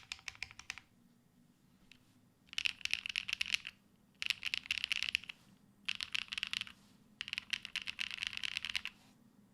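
Mechanical keyboard being typed on fast: a Matrix Lab Magic3 80% with a full aluminium plate, no foam, Sarokeys Strawberry Wine switches and GMK Hazakura keycaps. Runs of quick key clacks: one ends just under a second in, then come four runs of a second or so each, with short pauses between.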